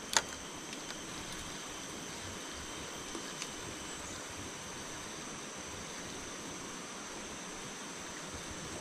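Steady rush of a flowing jungle stream, with a high, steady insect drone over it. A single sharp click comes just after the start.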